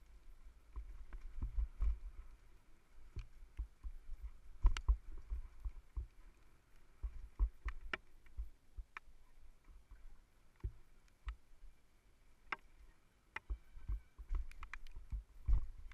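Downhill mountain bike running fast over a bumpy dirt trail, heard from a helmet-mounted camera: irregular low thumps from the terrain with sharp clicks and rattles of the bike throughout.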